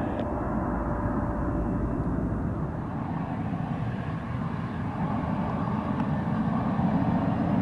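Four-engine turboprop patrol aircraft of the P-3 Orion type droning as it flies past, then, partway through, the steady running of a Bombardier CRJ-200's two rear-mounted turbofan engines as the jet taxis.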